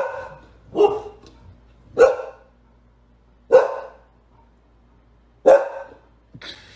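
A dog barking five times, single loud barks spaced one to two seconds apart.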